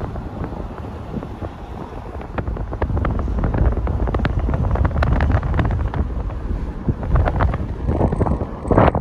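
Wind buffeting the phone's microphone, a low rumbling rush with crackling gusts. It grows stronger about three seconds in, with a louder rush near the end.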